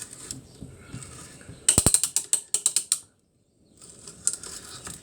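Ratchet of a hand-cranked carpenter's brace clicking in a quick run of about ten clicks a second as the handle swings back, with the bit's quieter scraping as it bores into wood before and after the clicks.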